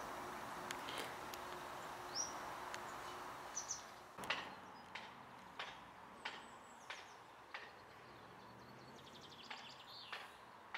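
Footsteps on a hard path, evenly paced at about three steps every two seconds, beginning about four seconds in. Small birds give a few short chirps, and a faint steady rushing noise fades out by the time the steps start.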